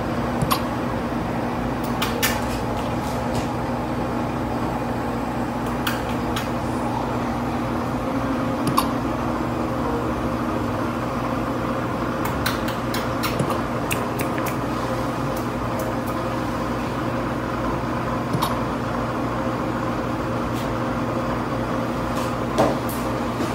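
Steady mechanical hum of running room equipment, with a few short, sharp clicks scattered irregularly through it.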